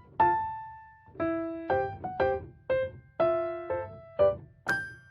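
Background music: a gentle piano melody of single notes and chords, each note ringing out and fading.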